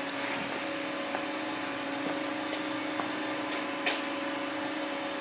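Steady hum and whir of running machinery with a level whine through it, and a single light click about four seconds in.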